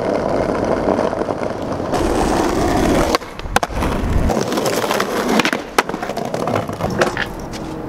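Skateboard wheels rolling over rough street asphalt and pavers. From about three seconds in there are several sharp clacks of the board popping and landing.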